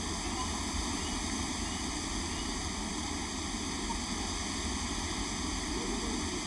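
Steady outdoor background ambience: an even hiss with a low rumble underneath and no distinct events.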